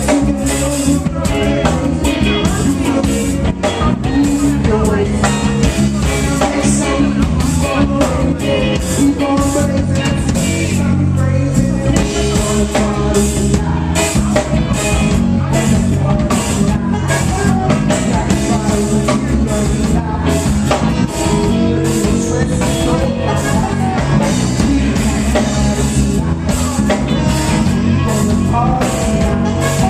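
A reggae band playing live, with a singer over bass, guitar and drums on a Yamaha Rock Tour kit.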